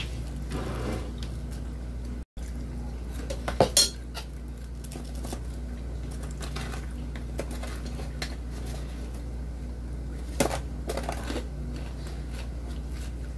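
Plates and tableware clinking now and then during a meal, over a steady low hum. The sharpest knocks come just before four seconds in, with a few more around ten and eleven seconds.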